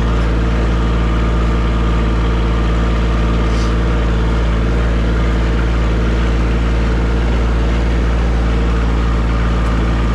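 Tractor engine running steadily at an even speed, a low, constant rumble.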